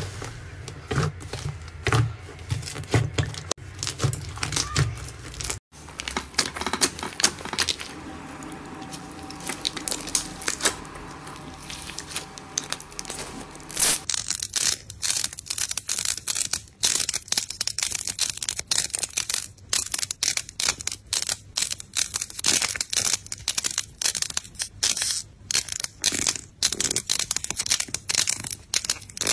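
Thick white slime being pressed and kneaded by hand, then after a cut, from about halfway, fingers crushing rows of dried clay balls one after another in a quick run of crunchy cracks.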